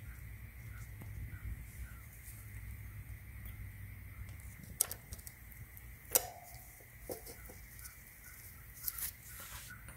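A few sharp small clicks of metal parts as a motorcycle chain master link and its O-rings are handled and fitted, over a faint steady hum.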